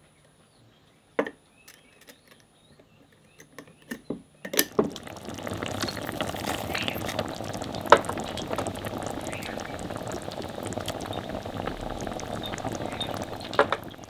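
A few light clinks in near quiet, then, from about four and a half seconds in, whole tomatoes sizzling and bubbling in hot oil in a pan, with a few sharper clicks through the sizzle.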